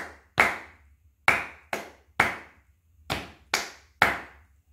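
Hand clapping a steady rhythm pattern: a single clap, then two quicker claps, repeating with about one clap every 0.9 s on the beat. These are the quarter-note and paired eighth-note claps of a 4/4 rhythm exercise, seven sharp claps in all.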